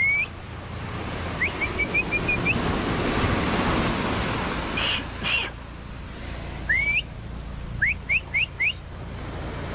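Sharp rising whistles, repeated in short runs (a single one at the start, a string of quick chirps, a pair in the middle and four quick ones near the end): a person whistling to call a dog back from the water. Waves wash up on the sand and rocks underneath, swelling once in the middle.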